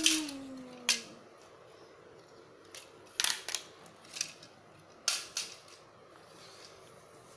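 A child's drawn-out vocal sound falling in pitch and fading out in the first second, then scattered sharp plastic clicks and knocks, some in quick pairs, as hard plastic toy figures are handled and knocked together or against the tiled floor.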